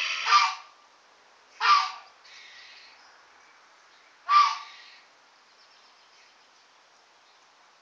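Capybara giving short, gruff alarm barks at a cat it has spotted: three barks, the first two about a second and a half apart and the third about two and a half seconds later.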